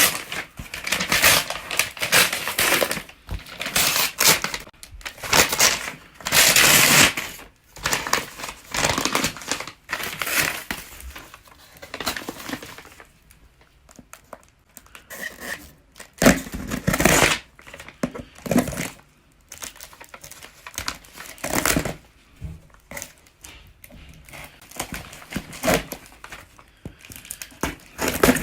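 A parcel's packaging being handled and opened by hand: irregular crinkling, rustling and tearing, in bursts with a couple of quieter pauses.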